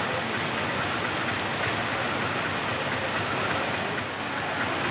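Heavy rain pouring down steadily, a dense, even hiss.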